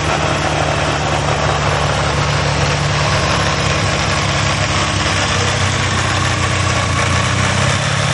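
Yamaha XJ600S Diversion's inline-four engine idling steadily.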